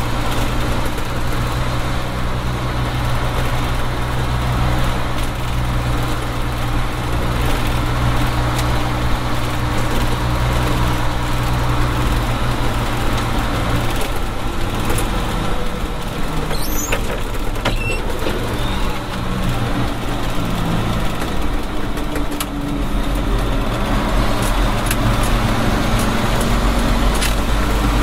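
Nissan Diesel PF6TB diesel engine of a Tadano GT550E truck crane running on the road, heard from inside the closed cab. The engine eases off for a moment about three-quarters of the way through, then pulls harder again, with a few light clicks near the middle.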